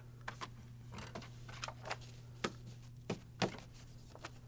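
Scattered light clicks and knocks from handling the HP OfficeJet Pro 8710's plastic paper input tray and a stack of printer paper being readied for loading, two knocks a little past halfway standing out, over a low steady hum.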